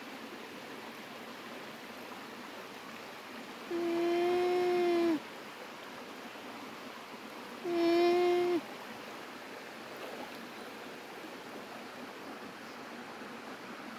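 A llama humming twice: a steady, even-pitched hum of about a second and a half, then a shorter one about two seconds later, each sagging slightly in pitch as it ends. A steady hiss of background noise runs underneath.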